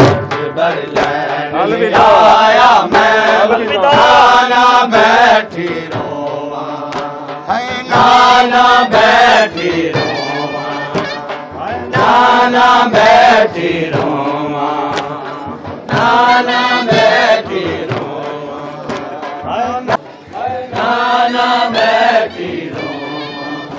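Men chanting a noha, a Shia Muharram lament, with loud sung phrases returning about every four seconds.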